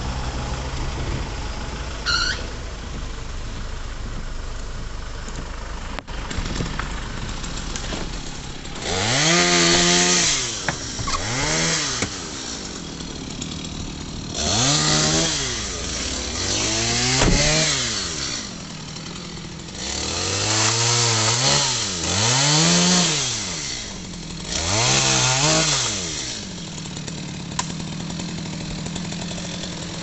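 Petrol chainsaw idling, then revved up and down about seven times as it cuts through fallen tree branches, dropping back to a steady idle near the end.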